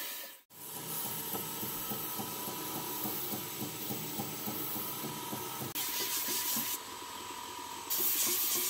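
Belt grinder running, its abrasive belt hissing against a linen micarta knife handle as the handle is shaped on the slack, springy part of the belt. The sound cuts out for an instant about half a second in.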